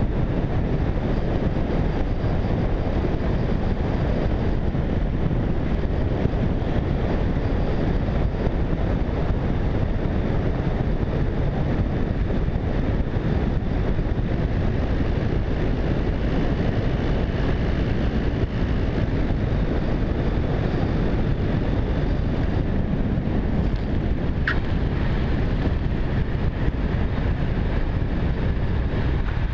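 Steady drone of a Tecnam P92 ultralight in flight: engine and rushing air blend into an even noise, heavy in the low range, that holds unchanged.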